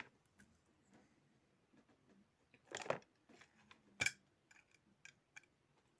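Small plastic parts of a computer mouse being handled and fitted: a short scrape about three seconds in, a sharp click a second later, then a few lighter clicks.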